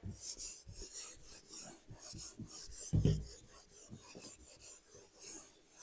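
Faint scratching and rubbing sounds in short strokes, with one soft low thump about three seconds in.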